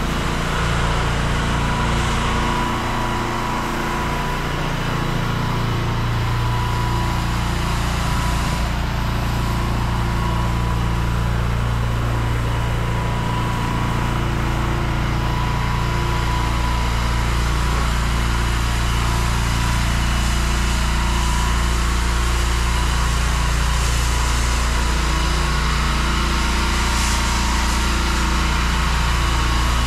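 An engine-driven pressure washer running steadily, with water spraying from the lance as the block paving is rinsed.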